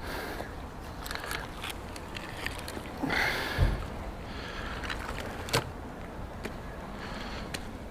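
Canal water splashing and sloshing with scattered knocks and clanks as a bike frame is hauled out on a magnet, with a louder rush ending in a thump about three seconds in and a sharp knock a couple of seconds later.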